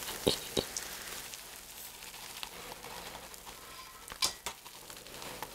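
Crusty bread shell of a giant cheese-filled bread ball being pulled apart by hand, with the crust crackling and tearing. There are two sharp crackles near the start and a louder burst of crackling about four seconds in.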